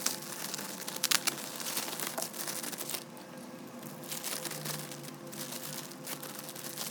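Plastic packaging being handled, crinkling and rustling, with a few sharp crackles about a second in and softer rustling from about three seconds on.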